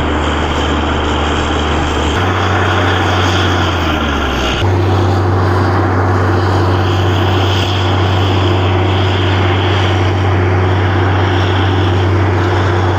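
Borewell drilling rig running: a loud, steady low engine-and-compressor drone. Its pitch shifts about two seconds in, then glides and settles at a new steady pitch about four and a half seconds in.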